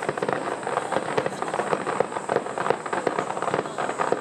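Aerial fireworks display bursting in quick succession: a dense, continuous run of bangs and crackles with no single standout boom.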